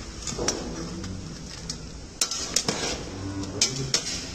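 Metal spatula stirring meat chunks in sauce in a large stainless steel stockpot, with several sharp clinks and knocks of metal on the pot in the second half.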